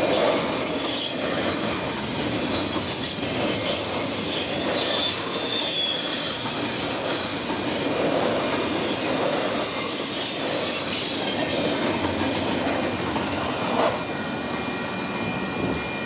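Union Pacific intermodal freight train's container cars rolling past: a steady rumble and clatter of steel wheels on rail with a faint high wheel squeal. The sound eases slightly near the end.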